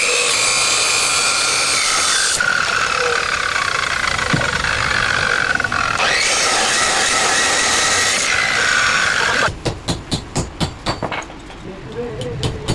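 Steel being worked on a heavy bracket: a steady harsh hiss and grind with a whine that sinks and rises in pitch, then about nine and a half seconds in it stops and gives way to a quick run of sharp metal taps, about three or four a second.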